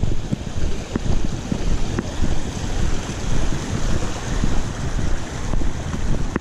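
Low, uneven rumble of wind and handling noise on a GoPro clipped to a backpack chest strap, jolted with each step, over the steady rush of a creek running alongside. A few faint clicks sound now and then.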